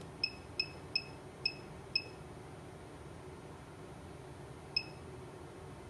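Short high electronic beeps from a dispensing robot's handheld teaching pendant as its jog key is pressed to step the Z axis. Five come in quick succession over about two seconds, then one more near the end.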